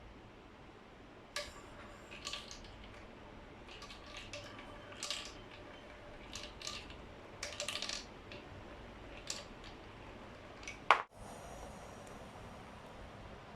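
Marbles rolling and clacking through a PVC-pipe marble run, a string of sharp clicks with a faint ringing from the pipes through the first half. The loudest is a single sharp knock about eleven seconds in.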